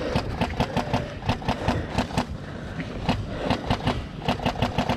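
A rapid, uneven run of sharp clicks and knocks, several a second, over a low rumble.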